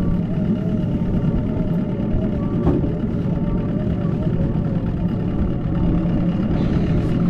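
Outboard motor running steadily as the boat trolls, a constant low hum with a thin, slightly wavering whine over it. A single light knock about two and a half seconds in.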